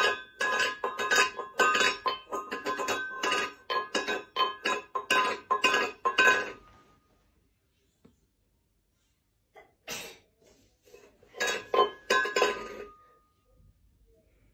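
Rapid light metallic clinking and jingling, each strike leaving a short ringing note. It runs for about the first seven seconds, stops, and comes back briefly about ten seconds in and again a little later.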